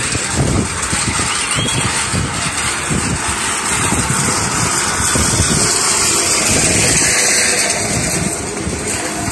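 Vehicle engines running at a busy minibus station: an uneven low rumble with a steady hiss above it.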